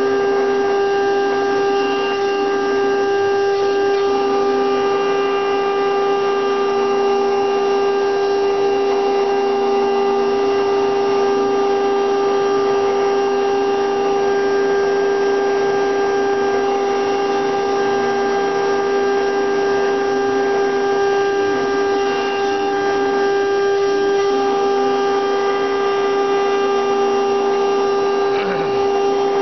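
CNC router spindle running at a steady pitched whine while its bit carves a wooden figure held on the machine's rotary axis, with the rough noise of the wood being cut under the whine.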